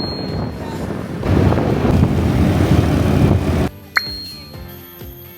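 Background music under a loud rushing noise that stops suddenly after about three and a half seconds, followed by a short ding.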